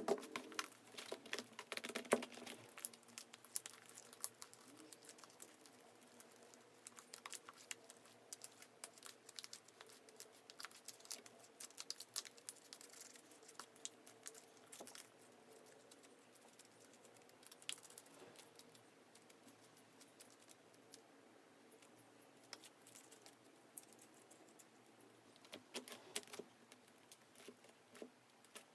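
Sticky, freshly activated clear slime being stirred and worked: faint, irregular small clicks, crackles and wet pops.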